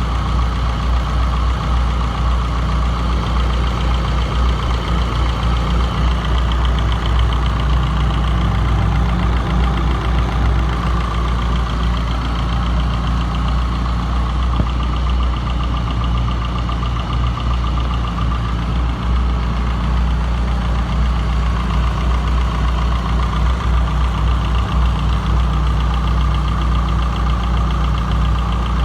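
Toyota 4A-GE 20-valve four-cylinder engine idling steadily, with a fast, even ticking over the running.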